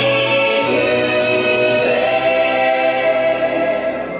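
Choral music played over loudspeakers: a choir singing long held chords that shift every second or two.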